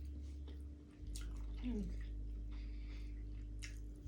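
Wet eating sounds, small mouth clicks and smacks while eating food, over a steady low hum. A short falling hum-like vocal sound comes about one and a half seconds in.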